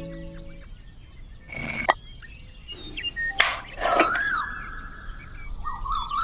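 Bird-like chirps and whistles: a whistle that rises and falls about four seconds in, and a wavering, warbling whistle near the end, with a few sharp clicks between them.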